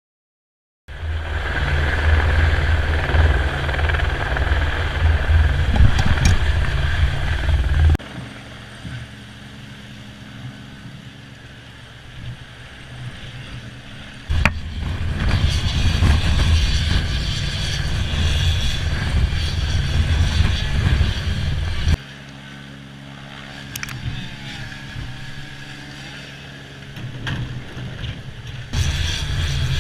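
Helicopter engine and rotor noise heard from a camera hanging on the lifting hook, loud with a heavy low rumble. It drops abruptly to a quieter level twice and comes back up, jumping at each edit.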